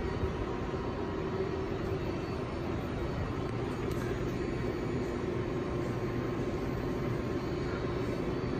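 Steady interior noise of an R142A subway car: a low, even drone with faint steady hums above it.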